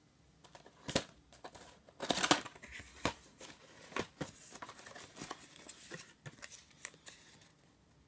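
Handling noises from a gas alarm being replaced: an irregular run of clicks, knocks and rustling, with the loudest knocks about a second in and around two seconds in.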